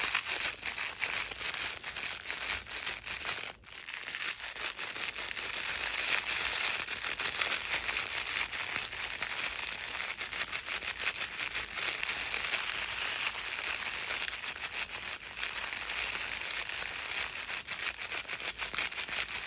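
Crinkle pages of a baby's crinkle book being squeezed and rustled continuously, a dense crackly rustle with a brief pause about three and a half seconds in.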